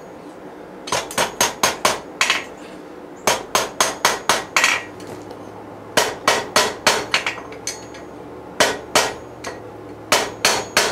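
Hand hammer striking red-hot steel on an anvil while forging, each blow ringing. The blows come in quick runs of several strikes, about three or four a second, with short pauses between the runs.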